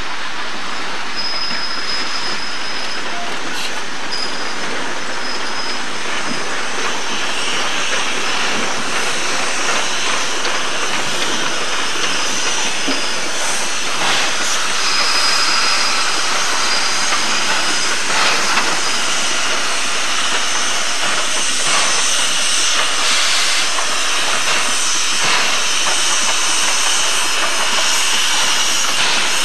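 Train of passenger coaches rolling slowly past, wheels clicking over the rail joints and squealing now and then in a thin high tone, over a steady hiss.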